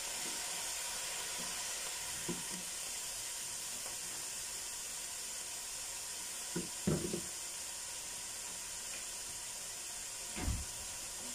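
Vegetables frying in oil in a pot, shredded cabbage just tipped on top of sautéing garlic, bell pepper and carrots, giving a steady sizzle. A few soft knocks come through it, about two, seven and ten seconds in.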